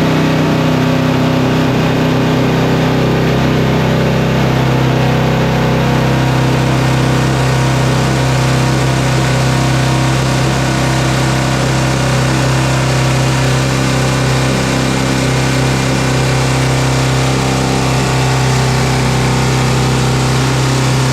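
A 100-year-old pneumatic mining air drill running flat out: a loud, steady, low-pitched buzz over a hiss of exhausting air, holding an even pitch throughout.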